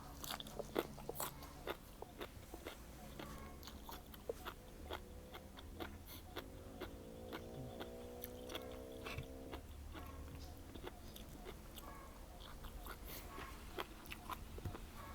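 A man chewing a spicy seafood papaya salad with fresh vegetables, with soft mouth noises and scattered small crunches and clicks. A faint steady tone comes in for about three seconds midway.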